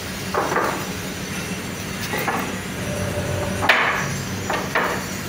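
Hammer blows in a foundry workshop: about five irregular strikes, the loudest a little before four seconds in, some leaving a brief ring, over a steady low hum.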